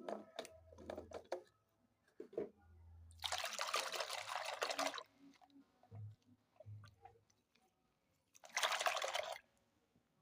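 Wet, sticky squishing of slime being handled, with crackly pops, then two longer wet squelches.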